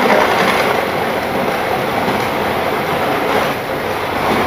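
Model railway train running on its track: a steady whirring and rumbling of the motor and wheels on the rails.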